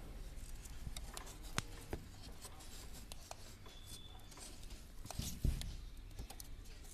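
Close handling noise in a straw nest: soft rustling of dry straw with scattered small clicks, and a louder rub with a low thump about five seconds in.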